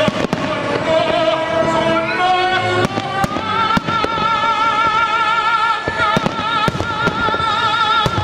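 Fireworks shells and firecracker reports going off in a steady series of sharp bangs over music, in which a long note with vibrato is held from about three seconds in to near the end.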